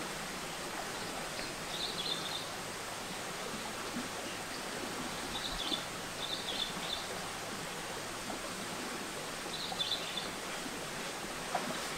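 Shallow rocky forest stream running with a steady rush, and a bird chirping briefly four times, in short clusters of high notes.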